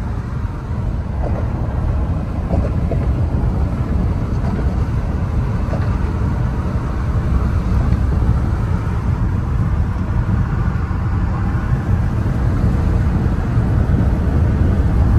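Steady low rumble of a car in motion: road and engine noise.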